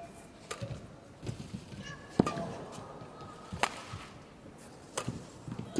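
Badminton rally: rackets strike the shuttlecock about five times, roughly one hit every second or so, the sharpest about two seconds in, with brief squeaks of court shoes on the mat between hits.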